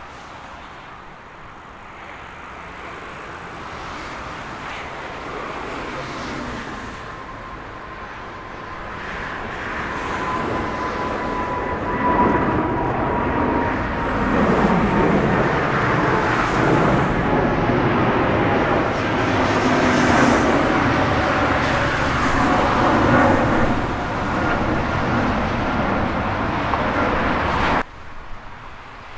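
Boeing 777-300ER's two GE90 turbofan engines at takeoff power as the airliner climbs out. The rumble grows louder over the first dozen seconds, with a high whine that slowly falls in pitch. The sound cuts off abruptly near the end.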